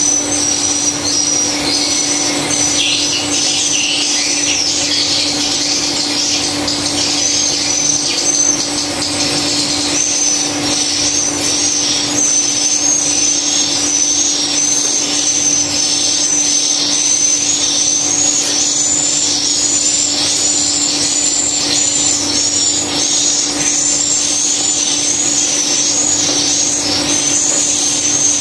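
Swiftlet chirps repeating rapidly, growing denser and more regular in the second half, over a steady low hum.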